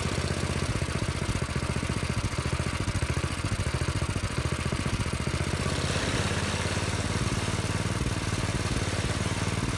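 Predator 212cc single-cylinder four-stroke engine idling with a steady, rapid putter while its carburetor idle screw is turned with a screwdriver to set the idle speed.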